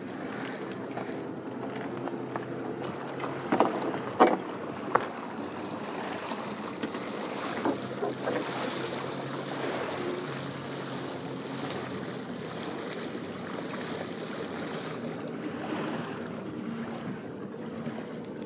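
Wind and water sounds aboard a sailboat moving over calm sea, with a low steady hum underneath and a few sharp knocks about four seconds in.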